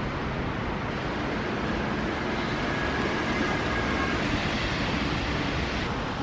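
Rain falling, a steady even hiss.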